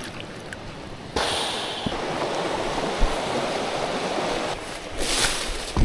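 Rushing water of a small rocky creek's rapids, a steady even rush that cuts in abruptly about a second in after a quieter start.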